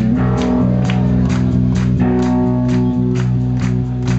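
Live rock band playing loud: guitars holding sustained notes over a steady drum beat, with a hit about twice a second.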